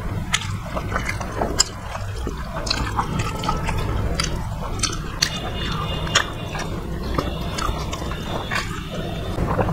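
Eating rice and curry by hand: wet, sticky squelches and clicks of fingers mixing rice with curry gravy, and mouth sounds of chewing, over a steady low hum.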